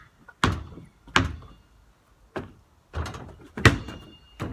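Basketball being dribbled: a run of single thuds, roughly one every half-second to second, with a short break near the middle.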